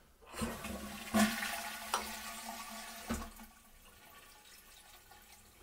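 Toilet cistern flushed by its dual-flush push button: a rush of water with a knock about a second in, falling away after about three seconds. What remains is only a faint trickle as the SIAMP fill valve refills very slowly, a slow fill the owner traces to a tiny rupture in the valve's diaphragm.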